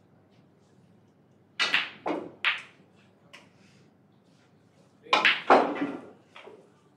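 Snooker balls clicking together: a quick run of three sharp knocks about one and a half seconds in, then a second cluster of knocks about five seconds in as the struck reds hit other balls.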